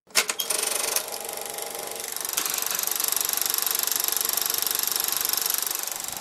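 A fast, even mechanical rattle with hiss, starting suddenly with a few sharp clicks.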